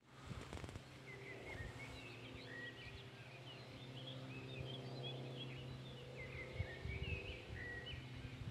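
Vulcanair P68 twin-engine propeller plane droning steadily at one pitch, with small birds chirping over it.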